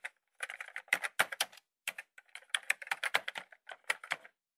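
Computer keyboard typing: quick, irregular keystroke clicks in short runs with brief pauses, used as a typing sound effect for text typed out on screen. The keystrokes stop shortly before the end.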